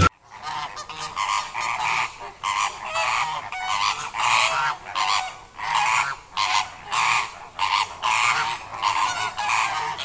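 Greater flamingos calling: goose-like honks repeated in quick succession, about two or three a second, with calls overlapping as from several birds.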